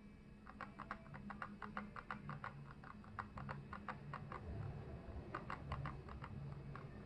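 Focus ring of a Canon EF 35mm f/1.4L II lens being touched and turned, giving rapid runs of light clicks, several a second, with a short lull in the middle. It is an annoying noise that its new owner is unsure is normal.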